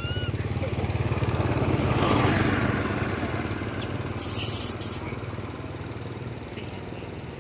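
A baby macaque gives a short, rising-and-falling squealing call right at the start, then a motorcycle engine runs steadily, swelling to about two seconds in and slowly fading. About four seconds in, a sudden loud hissing noise lasts about half a second.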